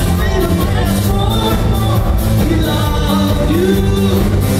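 Live band playing an upbeat song with a sung lead vocal over electric bass, drums, keyboard and banjo.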